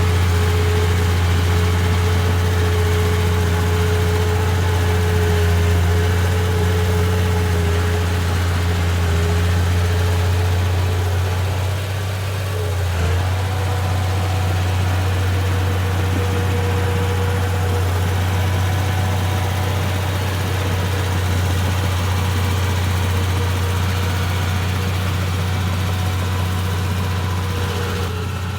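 Komatsu D31P bulldozer's diesel engine running steadily at a low speed. About twelve seconds in its note dips briefly, then settles again slightly higher.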